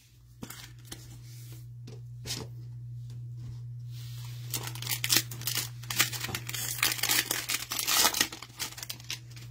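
A foil trading-card pack (2021 Panini Donruss Optic football) being handled and torn open: a few light crinkles at first, then about halfway through dense tearing and crackling of the foil wrapper that lasts to near the end.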